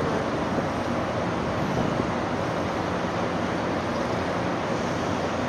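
Steady outdoor rush of wind on the microphone over harbour background noise, with a faint low hum underneath.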